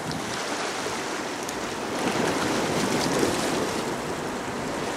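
Sea water washing and splashing against shoreline rocks: a steady rush of surf, swelling a little about two and three seconds in.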